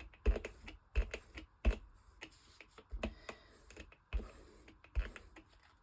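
Tombow Mono glue stick being worked over paper in short, heavy strokes, giving a string of irregular knocks and clicks, about six loud ones among smaller taps.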